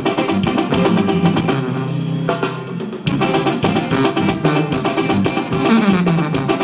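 Live band music with drums, guitar and a trumpet section playing. It thins out about two seconds in, then the full band comes back in sharply at about three seconds.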